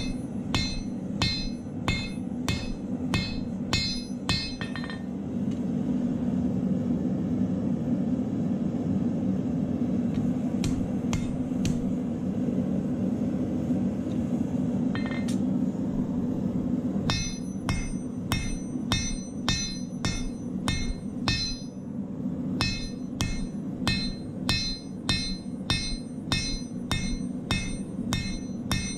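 Hand hammer forging a red-hot steel bolo knife blade on an anvil: regular blows about two a second, each with a bright metallic ring. The blows stop for about twelve seconds, with only a few scattered strikes, then start again. A steady low hum runs underneath.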